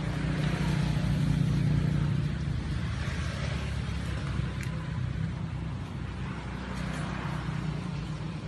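A steady low engine hum, a little louder about one to two seconds in.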